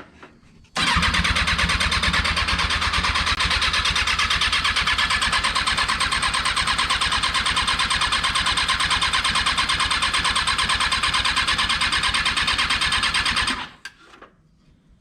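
Rebuilt Kawasaki 636 inline-four engine cranking over on its electric starter for about thirteen seconds without firing, in a steady, even rhythm. It starts about a second in and cuts off abruptly near the end; the engine will not start.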